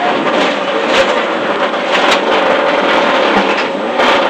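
Rally car's engine heard from inside the cockpit, running under power at steady revs over road and tyre noise, with three sharp cracks about a second or two apart.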